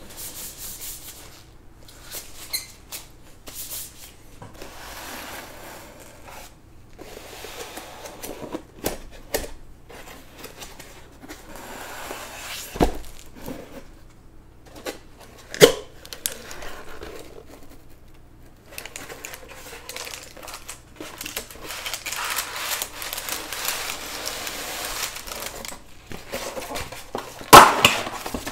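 Food being handled and plated: rustling of packaging and scrapes, with scattered clicks and knocks of dishes and utensils and a sharp clatter near the end.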